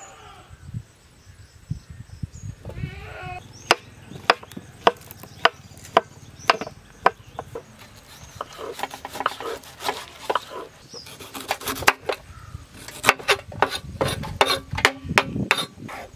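Kitchen knife cutting pineapple on a wooden board: sharp knocks of the blade on the board about two a second, then a quicker run of chops near the end as the fruit is diced. An animal bleats once about three seconds in.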